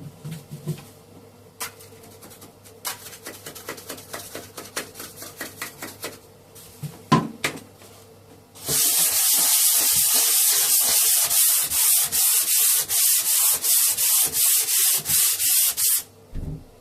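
Hand sanding of a plaster base coat join: light, scratchy strokes for the first half, then loud rasping back-and-forth strokes, about three a second, that stop shortly before the end.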